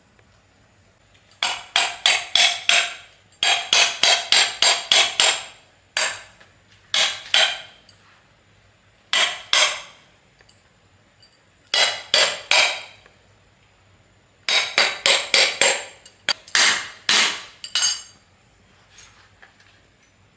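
A hammer striking metal in quick runs of sharp, ringing blows, a pause between each run, typical of knocking apart or driving parts of a water pump during its repair.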